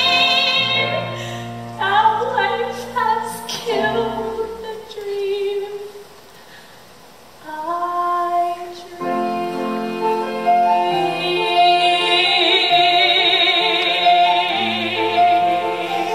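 A young female soloist singing a musical-theatre song with vibrato over instrumental accompaniment. Everything drops away briefly about six seconds in, then the singing returns, ending on a long held note with wide vibrato.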